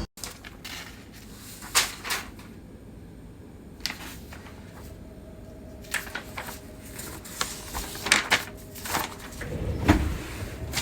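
Scattered sharp clicks and knocks of hard objects being handled, thickest in the last few seconds.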